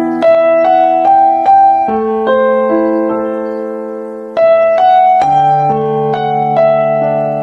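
Background piano music: slow melody notes over chords, with one chord held and fading away for a couple of seconds about halfway through.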